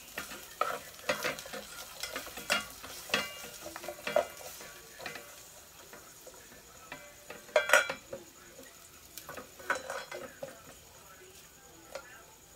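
Onion and garlic sizzling in oil in a rice cooker's inner pot, stirred with a plastic rice paddle that scrapes and knocks against the pot at an irregular pace. The loudest scrape comes a little past halfway, and the strokes grow sparser near the end, when a bowl is set on top as a lid.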